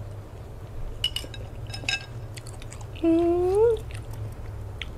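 A woman chewing a mouthful of raw salmon, with small clicks and smacks about one to two seconds in, then a short hummed "mmm" of approval that rises in pitch at its end.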